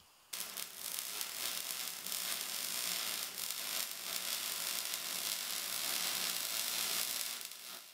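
Steady high-pitched hiss with a faint crackle, the sound laid under a channel's logo intro. It starts just after the cut and fades out near the end.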